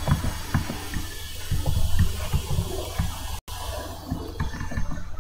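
Computer keyboard typing: irregular keystroke clicks over a steady background hiss and hum. The sound drops out for an instant about three and a half seconds in.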